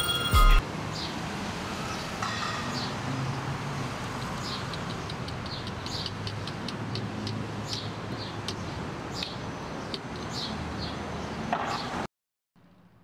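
A music cue ends about half a second in, leaving steady car road and traffic noise with many small, high clicks scattered through it. The sound cuts off abruptly to near silence near the end.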